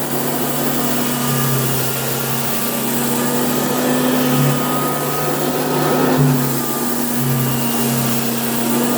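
1976 Goblin Housemaid GL888 upright vacuum cleaner running continuously as it vacuums sand out of a carpet: a steady motor hum with a thin whine above it and a hiss of air, swelling slightly now and then.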